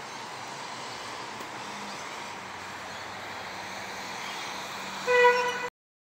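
Steady outdoor background hiss, then about five seconds in a short, loud horn toot with a steady pitch, after which the sound cuts off abruptly.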